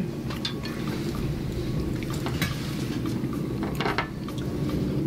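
A few light, sharp clicks and clinks of plates and utensils while eating, over a steady low background hum.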